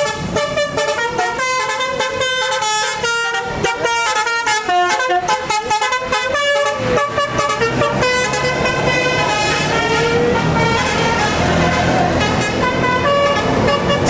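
Bus 'telolet basuri' musical horn playing a fast run of melodic notes over the bus's running engine. About halfway through the notes thin out and engine and road noise take over, with a few short horn notes still sounding.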